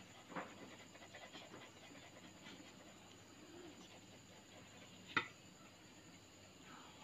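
Faint scratching of a pencil shading on drawing paper, with a single sharp click about five seconds in.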